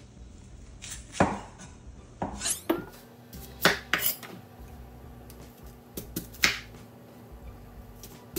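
A Chinese cleaver chopping an onion on a wooden cutting board: about a dozen sharp knocks of the blade striking the board, irregularly spaced and some in quick little groups.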